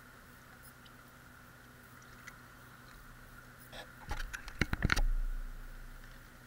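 Water sloshing and splashing as a plastic gold pan is dipped and tilted in a tub of water, washing off the light sand to leave black sand concentrates. A quick run of splashes about four seconds in is the loudest part.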